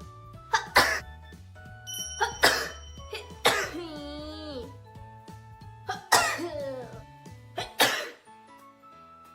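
Young women sneezing in quick succession, about six sharp sneezes, some drawn out with a voiced gliding 'ah' around them. Background music plays under them and stops near the end.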